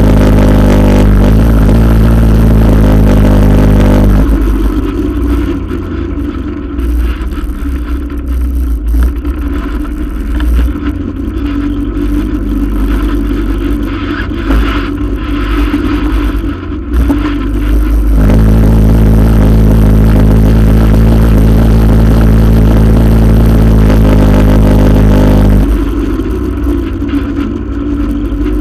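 ATV engine heard close up from a camera on the front rack, running loud with a steady note. About four seconds in the note drops and turns rougher and quieter. Partway through, the steady loud note returns, and it drops again near the end.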